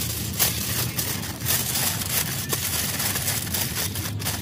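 Aluminium foil crinkling and crackling irregularly as it is folded and pressed by hand around a food parcel, over a steady low rumble.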